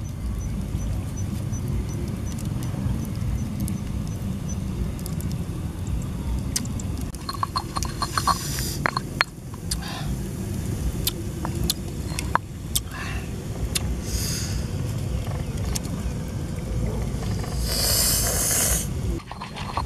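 Steady low rumble of wind buffeting the microphone, with scattered clicks and light knocks of hands handling food. Near the end, a louder scraping rustle of a stone pestle grinding red chillies in a stone mortar.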